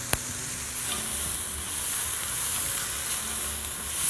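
Chopped vegetables (celery, leeks, garlic) sizzling in olive oil in a pan on the stove, with a single light click just after the start. The sizzle grows a little louder near the end.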